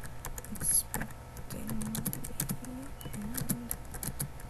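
Typing on a computer keyboard: a quick, uneven run of key clicks, with one louder keystroke about a second in.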